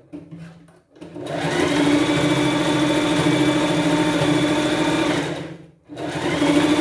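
Electric sewing machine stitching a seam: a few light clicks, then a steady hum for about four seconds. It stops briefly and runs again near the end.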